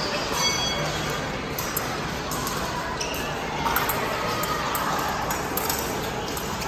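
Fencers' footwork thudding on the fencing strip against the steady din of a large tournament hall, with scattered clicks and a short electronic beep about half a second in.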